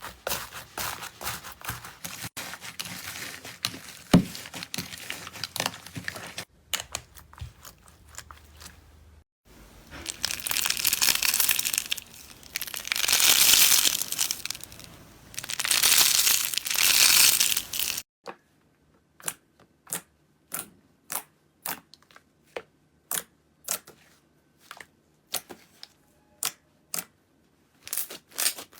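Slime being squeezed and worked by hand, crackling and crinkling. Midway come three long, loud squishing crunches, followed by a run of separate sharp pops about twice a second near the end.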